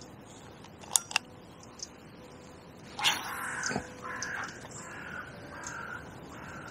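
Crows cawing several times in a row, starting about three seconds in. Two sharp clicks come about a second in, and a quick swish sounds as the caws begin, as the float rod is cast.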